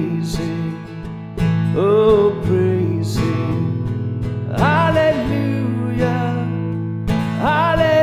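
A hymn sung by a voice over strummed acoustic guitar, in three held phrases.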